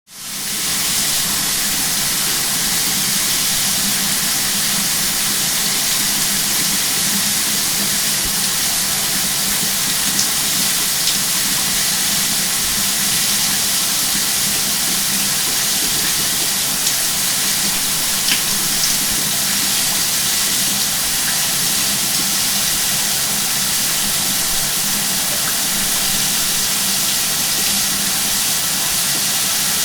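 Shower running: a steady spray of water hissing against the tub or tiles. It comes on at the start and rises to full flow within about a second.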